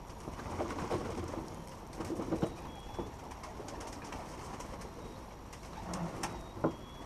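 Domestic pigeons cooing, with a few sharp knocks or clicks, the loudest about two and a half and six and a half seconds in.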